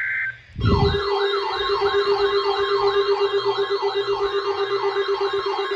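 Electronic siren-style alert tone: a fast rising wail that repeats about three times a second over a steady lower tone. It starts abruptly with a thump about half a second in, just after a steady high beep cuts off.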